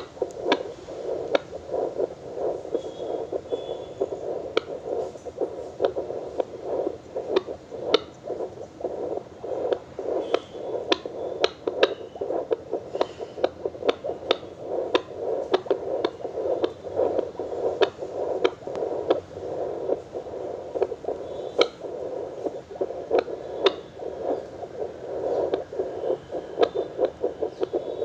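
BPL FD9714 handheld fetal Doppler's loudspeaker putting out a steady rushing hiss broken by frequent irregular clicks and crackles from its ultrasound probe.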